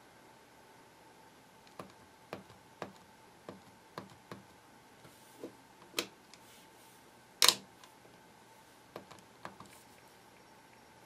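Keys on a vintage HP-55 calculator being pressed one at a time: about a dozen short clicks at irregular intervals, with one louder knock about seven and a half seconds in.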